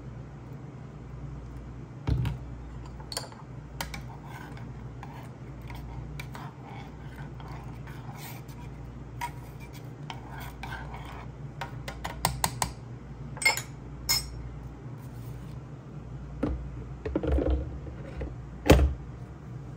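A small metal spoon stirring and clinking against the inside of the Okka Rich Pro's metal coffee pot, in scattered light taps over a steady low hum. A louder knock comes near the end.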